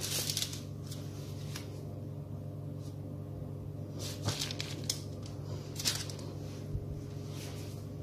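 A piping bag of soft petit four dough being squeezed out onto a parchment-lined baking tray: a handful of soft, brief squishes and paper rustles over a steady low hum.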